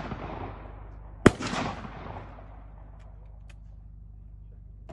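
Shotgun shot about a second in, its report rolling away over about a second, following the fading echo of a shot fired just before.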